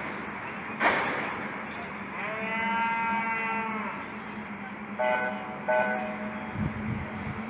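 A cow's long moo, rising then falling in pitch, after a sharp knock about a second in; two short horn-like beeps follow, over a steady low hum.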